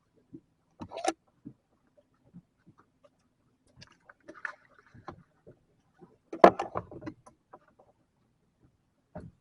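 Irregular knocks and thumps aboard a small fishing boat in choppy water, louder clattering about a second in and again past the middle, over a faint steady low hum.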